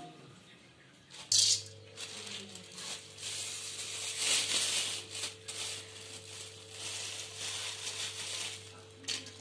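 Cashew pieces tipped into hot ghee in a steel kadai about a second in, then crackling and sizzling as they fry. A steady low hum runs underneath from the moment they go in.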